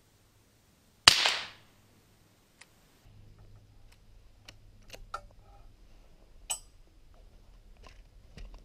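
A single shot from a scoped bolt-action .22 rifle firing CB .22 Short rounds: one sharp crack about a second in, dying away within half a second. Small scattered clicks of rifle handling follow.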